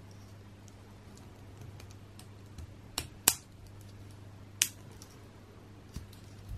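Fingers handling a small Playmobil figure parts packet and its plastic pieces: faint crinkling with four sharp clicks, the loudest about three seconds in, over a low steady hum.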